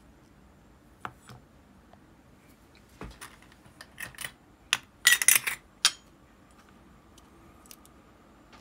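Small metal parts of a disassembled Abu Garcia Ambassadeur 5500C baitcasting reel clicking and clinking as they are handled and set down on a wooden tabletop. A short burst of metallic rattling comes about five seconds in.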